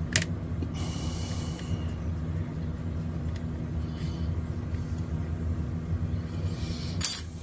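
Steady low background hum. About a second in there is a brief scrape as a small blade slits a wire's insulation, with a few light ticks, and a sharp clack comes near the end.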